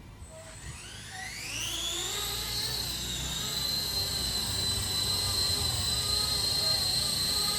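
Brushless electric motor of a 3D-printed RC helicopter spooling up. A high whine rises steeply over the first two seconds or so, then holds steady as the rotor comes up to speed.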